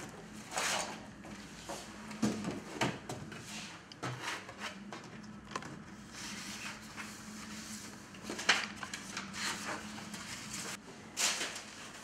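Handling noise in a small room: papers and a folder rustling and a wooden cupboard being knocked and opened, a string of short scrapes and knocks over a steady low hum that stops near the end.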